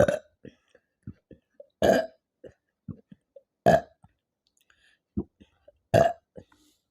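A woman burping up gas from Pepsi she has drunk: four loud burps about two seconds apart, with short, quieter burp sounds between them.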